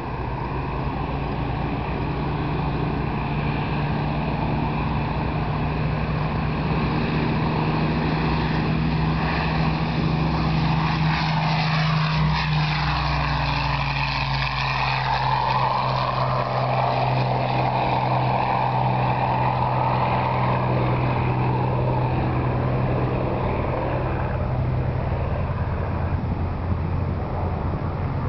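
Hawker Hurricane Mk IV's Rolls-Royce Merlin 27 V-12 engine and propeller at full power on the takeoff run. The plane passes close about halfway through with a slight drop in pitch, then keeps running steadily as it climbs away.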